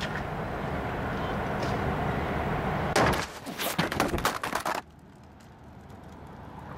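Steady hum of the car, then about three seconds in a loud hit as a thrown object strikes the camcorder. A run of clattering follows as the camcorder is knocked over and tumbles, and just before five seconds the sound turns suddenly quieter and muffled as it comes to rest.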